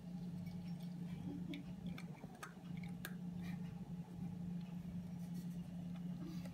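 A domestic cat crunching dry kibble from a bowl: irregular small crunches, most between about one and a half and three and a half seconds in. A steady low hum runs underneath.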